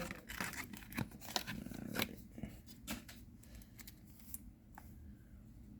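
Trading card booster pack being opened and its cards handled: a quick run of crinkles and sharp clicks over the first three seconds, then fainter rustling and ticks.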